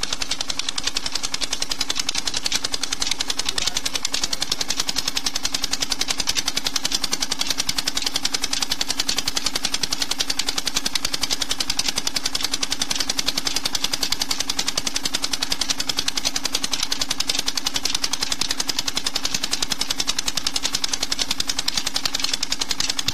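Petter single-cylinder stationary diesel engine running steadily on pure jatropha oil, with a rapid, even beat of firing strokes.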